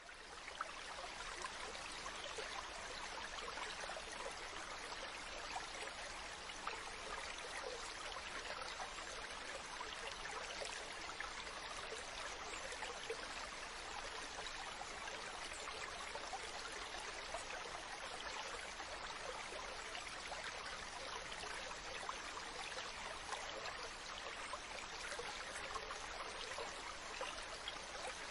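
Mountain stream running steadily over rocks, a continuous rush of water with small splashes and trickles through it. It fades in over the first moment.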